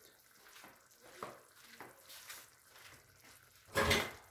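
Chicken liver stew simmering faintly in a stainless steel pot, with soft crackling. Near the end comes one short, loud scrape.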